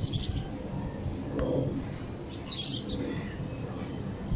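A bird chirping in two short bursts, one at the start and one a little past the middle, over a steady low rumble.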